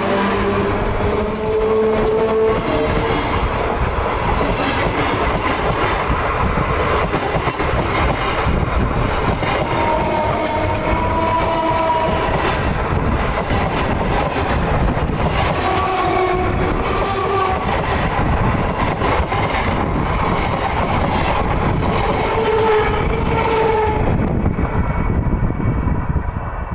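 Electric multiple unit (EMU) local train passing directly over a camera set between the rails: a loud, continuous rumble and clatter of wheels over the track, with whining tones that waver up and down and come and go.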